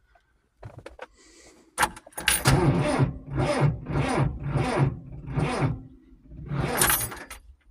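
Tractor engine being cranked on its starter in the cold: a click as the starter engages, then about five seconds of slow, even turning-over at roughly two pulses a second that stops without the engine firing. A cold start at −2 °C that fails to catch.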